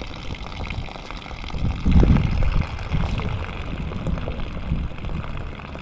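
A thin trickle of water running out of a septic tank's outlet fitting, the sign that water flushed from the bathroom is passing through the tank. A low rumble runs under it and swells about two seconds in.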